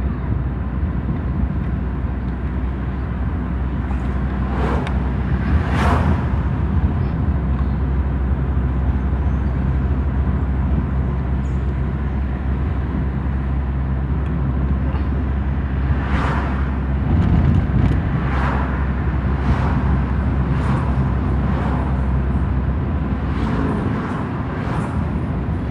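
Car driving, heard from inside the cabin: a steady low engine and road rumble, with several brief rushes of noise, a couple about five seconds in and a run of them in the second half.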